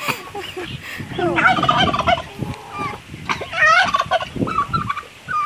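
Domestic turkeys gobbling: two bursts of rapid, warbling calls, the first about a second in and the second a couple of seconds later.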